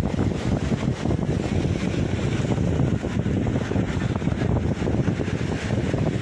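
Steady wind buffeting the microphone over sea surf washing against the rocks of a breakwater.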